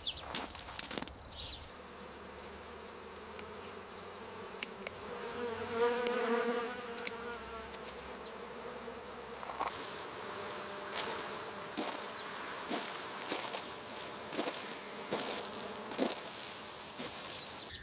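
Buzzing of a flying insect, strongest about six seconds in as it passes close, over a faint outdoor background with scattered small ticks.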